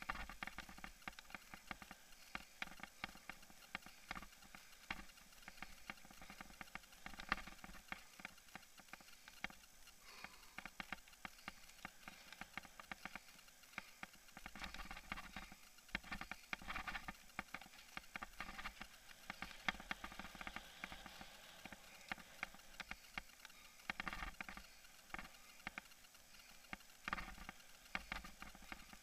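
Camera on a mountain bike rattling as the bike rides a dirt singletrack trail: a steady run of quick, irregular clicks and knocks.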